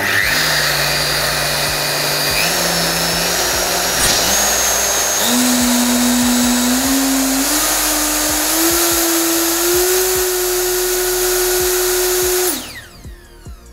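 Makita RP2301FCX plunge router's brushed motor starting at its lowest speed, then its whine rising in about six steps over ten seconds as the speed dial is turned up while it runs. It holds at top speed, then is switched off about 12.5 seconds in and stops quickly under its electric motor brake.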